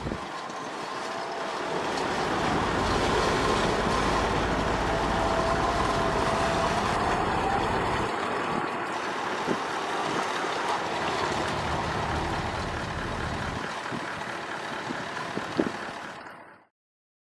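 Four-wheel-drive vehicle driving along an off-road track: steady engine and tyre noise that fades out about a second before the end.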